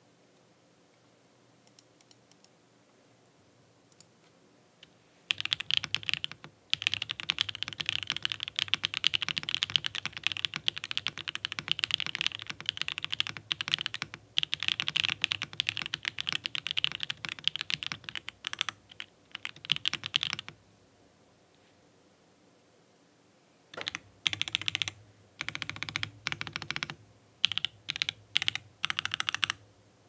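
Typing on an Akko ACR Top 40, a 40% acrylic top-mount mechanical keyboard with long-pole Akko V3 Cream Yellow Pro switches on a polycarbonate plate: a clean, clacky keystroke sound. Fast continuous typing starts about five seconds in and runs for about fifteen seconds, then after a pause come several short bursts of keystrokes near the end.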